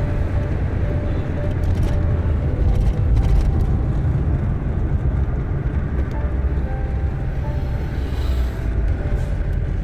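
Car driving at highway speed: a steady, heavy low rumble of road and wind noise.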